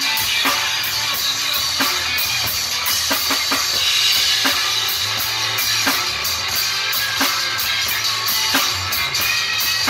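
Drum kit played in a steady blues groove: bass drum, snare hits about every two-thirds of a second, and a constant wash of cymbals, with the blues song's music behind it.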